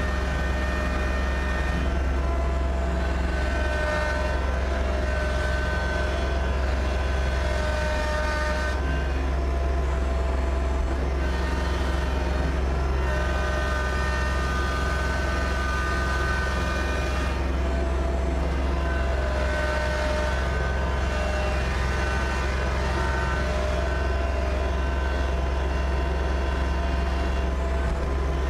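Kubota BX2680 tractor's three-cylinder diesel engine running steadily, its pitch shifting slightly a few times as the engine speed changes.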